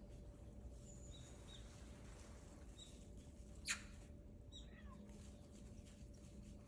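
Faint, short high-pitched chirps of small birds a few times over a near-quiet background, one of them sliding down in pitch, with a single sharp click about three and a half seconds in.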